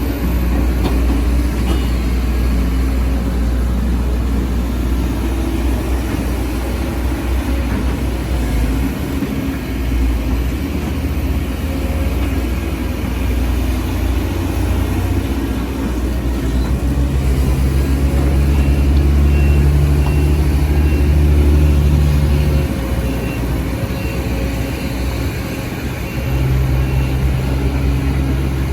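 Diesel engine of a Sumitomo SH210F hydraulic excavator running steadily while it works, its note swelling and easing with the load. The engine is loudest for several seconds from a little past the middle, drops back, then picks up again near the end.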